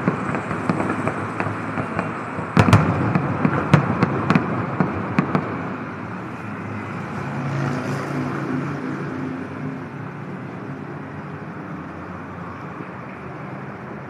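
Fireworks bursting: a run of sharp bangs and crackles, loudest about two and a half seconds in. The bangs stop about halfway through, leaving a steady background noise that slowly fades.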